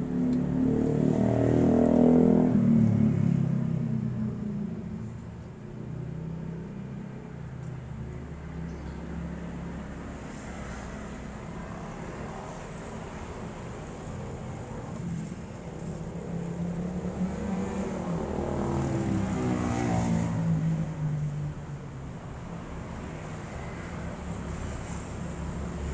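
Motor vehicles passing on a road: an engine hum swells and fades with the first pass loudest about two seconds in. A second vehicle goes by near the end, its pitch rising and then dropping as it passes.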